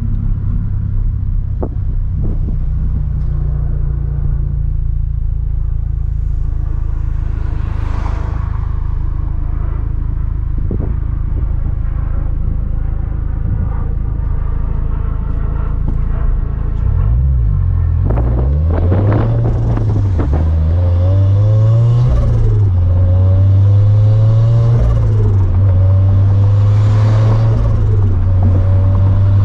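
Turbocharged flat-four engine and exhaust of a 2013 Scion FR-S with a Greddy T518Z turbo kit, heard while driving. It holds a steady cruise for a while, then about halfway through the engine note starts swinging up and down again and again as the car is revved through gears.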